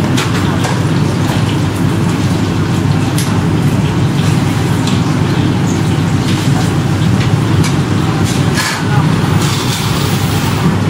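Street noise: a steady low rumble of traffic, with scattered sharp clinks of ladles and bowls at a noodle stall and faint voices in the background.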